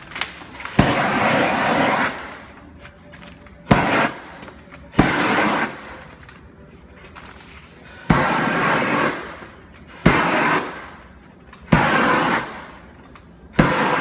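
Propane shrink-wrap heat gun (18,000 BTU) fired in short blasts to heat and shrink the plastic wrap: seven times, each a sharp click followed by about a second of rushing flame noise that tails off.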